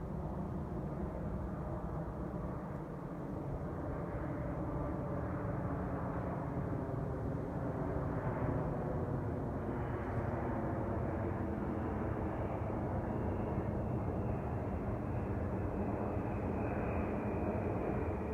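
Jet airliner engines rumbling overhead, growing a little louder a few seconds in. A faint high whine joins about halfway through and drifts slightly lower.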